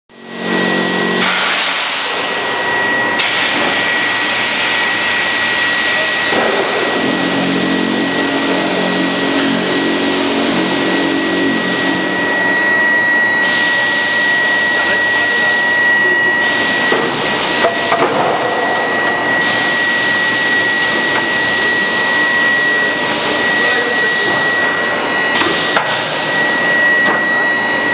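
Grinding-ball production line machinery running: a loud, steady noise with a constant high whine, a lower hum in places, and a few short knocks in the second half.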